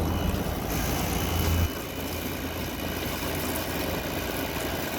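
Midea 5,000 BTU window air conditioner running, a steady whoosh of fan noise over a low hum that drops off sharply about a second and a half in. Its fan is picking up and spitting the condensate water that collects in the base pan, which has no drain hole.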